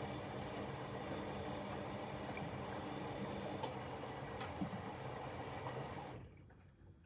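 Bosch Exxcel 1400 washing machine running: a steady motor hum with a few light knocks, cutting off about six seconds in.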